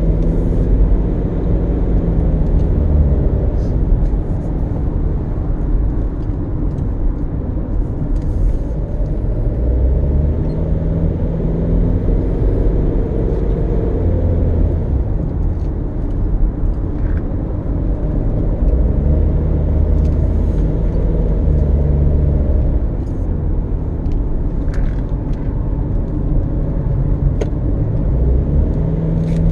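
A car driving, with steady engine and road noise. The engine note slowly rises and falls as the speed changes.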